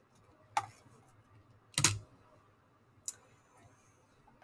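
Three short, sharp clicks at a computer, a little over a second apart, the middle one the loudest.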